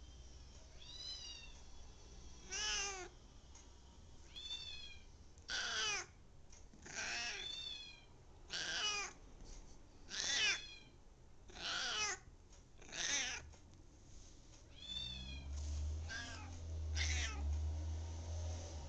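Domestic cat meowing over and over, about a dozen short calls spaced a second or two apart. A low rumble joins in for the last few seconds.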